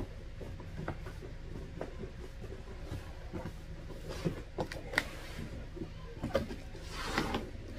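Cardboard shipping box being handled and opened: flaps folded back with scattered light knocks and scrapes, and a longer cardboard rustle near the end.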